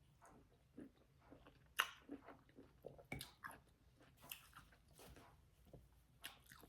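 A person chewing orange segments: faint, irregular clicks and smacks of the mouth.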